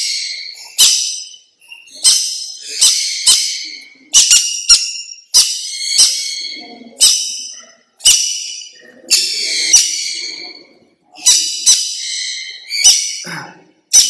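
Green-cheeked conure screeching over and over while held in the hand: over a dozen harsh, loud screeches, about one a second.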